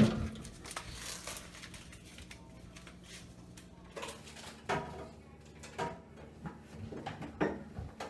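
Produce being handled in a refrigerator crisper drawer: a sharp knock at the start, then scattered light knocks and rustles over a low steady hum.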